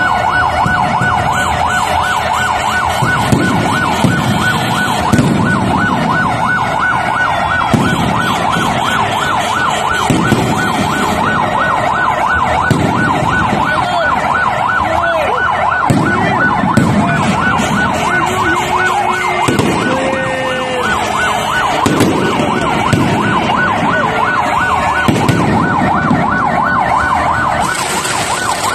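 A siren sounds in a fast, steady warble, with fireworks going off in deep booms every second or two.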